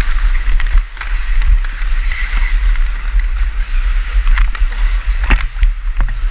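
Wind rumbling over a helmet-mounted GoPro while the wearer skates, with ice-skate blades scraping the ice. Several sharp clacks of a hockey stick on the puck and ice come through, most of them in the second half.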